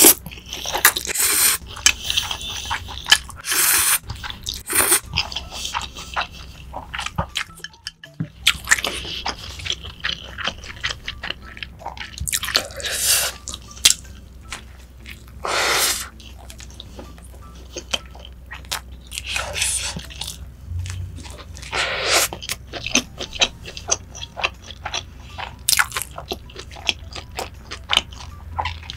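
Close-miked eating: slurping of spicy stir-fried instant noodles near the start, then bites into a cheeseburger and chewing, with many short wet mouth clicks throughout.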